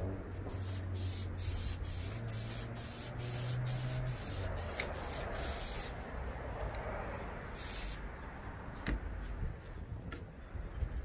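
Duplicolor clear coat aerosol can spraying: a long hiss of about five and a half seconds, then a short burst, laying down the second light coat of clear. A sharp click near nine seconds in.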